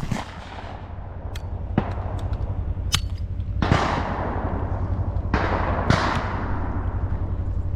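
A loud shotgun shot right at the start, fired at a thrown clay target, followed by several fainter, scattered sharp shotgun reports with trailing echoes. A steady low rumble runs underneath.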